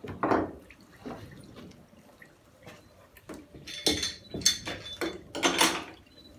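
Scattered knocks and clatter of things being handled, loudest in two clusters about four and five and a half seconds in, over the faint trickle of oil and water running from an olive press into the pit below.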